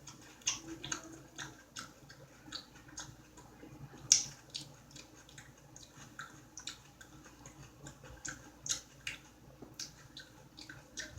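A person chewing food with wet mouth clicks and lip smacks, irregularly a few times a second, with one louder smack about four seconds in.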